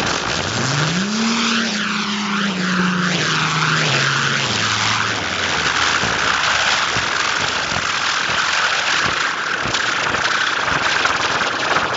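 Ground firework fountains hissing with a steady rushing roar as they spray sparks. A low tone slides down in pitch over the first few seconds.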